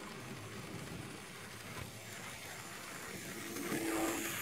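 N scale model train running on its track, the locomotive's small electric motor whirring and the wheels rolling on the rails. It gets louder near the end as the train passes close by.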